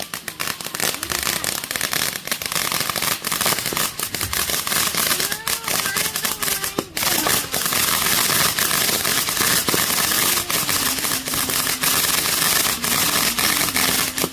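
Fireworks going off in a dense, continuous barrage of sharp pops and crackling, with no pause.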